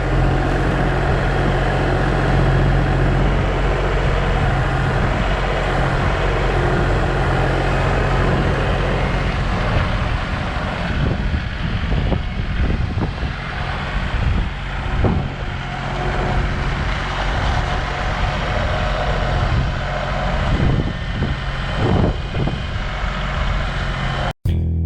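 An engine running steadily under load, a machine at work moving or leveling dirt and road base. Music starts right at the end.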